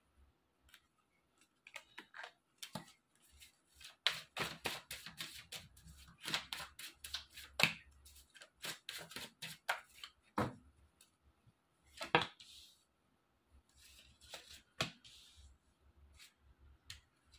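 A tarot deck handled by hand: a quick run of crisp card flicks and snaps as the cards are shuffled, then scattered single taps and soft slides as cards are drawn and laid down on a cloth.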